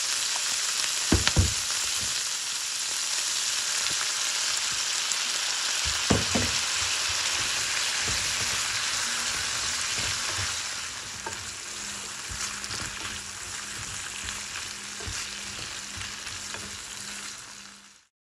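Sliced pork and onion sizzling in a frying pan, seasoned with mayonnaise and ponzu, as they are stirred with chopsticks. A few sharp knocks against the pan come about a second in and again around six seconds. The sizzling eases after about ten seconds and fades out near the end.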